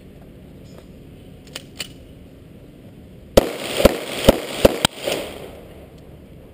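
Zastava EZ9 9mm pistol firing a rapid string of about five shots, roughly two a second, with echo dying away after them. Two light clicks come a couple of seconds before the shots.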